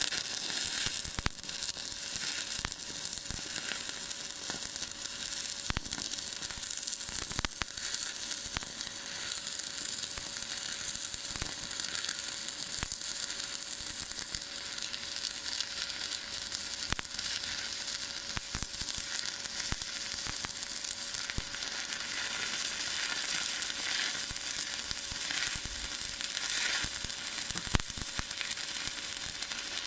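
Stick (SMAW) arc welding: the arc strikes right at the start and then crackles and sizzles steadily as a bead is run along a small steel plate, with scattered sharp pops from spatter throughout.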